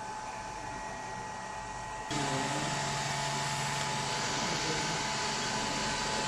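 Steady rushing of hot-air blowers on a BGA rework station, which jumps abruptly louder and hissier about two seconds in, as if a heater blower has switched on or gone to a higher flow, with a low steady hum under it.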